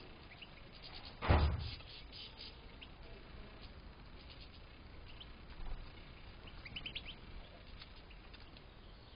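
European goldfinches giving short, high chirping calls, scattered and then in a quick cluster near the end. A dull thump about a second in is the loudest sound.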